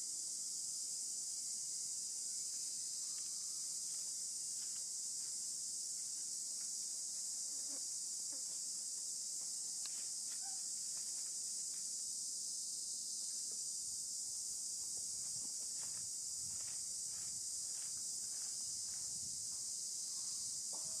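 Steady, unbroken high-pitched drone of an insect chorus, with faint soft clicks and smacks from a young macaque drinking milk from a carton.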